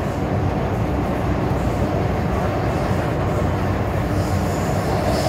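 MTR M-Train running through a tunnel, heard from inside the car: a steady rumble of wheels on rail with traction-motor noise. A faint high-pitched squeal comes in near the end.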